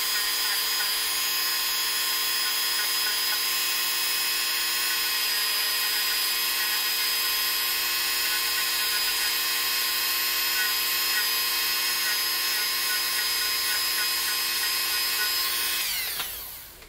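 Handheld rotary tool running at steady high speed with a small wheel, buffing light rust off a small steel sewing-machine part; a steady whine. Near the end it is switched off and the whine drops away as it spins down.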